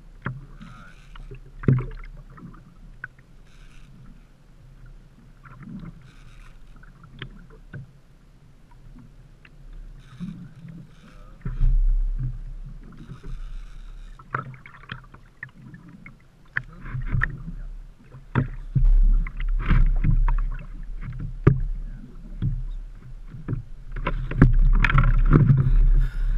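Knocks and bumps on the hull of a small 12-foot Sears Gamefisher boat rocking on open water, with gusts of wind buffeting the microphone. Near the end comes a louder stretch of clatter and thumps as an uku (grey snapper) is gaffed and hauled aboard.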